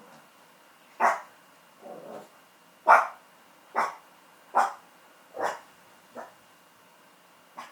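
A Chihuahua barking: a string of short, sharp barks about one a second, with a lower, softer one between the first two and fainter ones near the end. It is the barking that wakes the owner in the morning.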